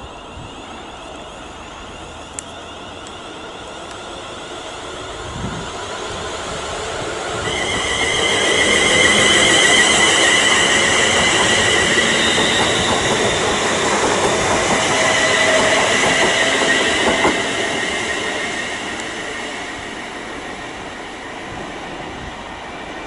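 A train passing through the station: the rumble of wheels on rail builds, is loudest for about ten seconds with a high wavering whine over it, then fades as it moves away.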